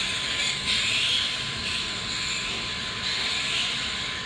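Dromida 1/18-scale electric RC rally car driving on a smooth concrete floor: a steady high motor-and-gear whine with tyre hiss, a little louder in the first second.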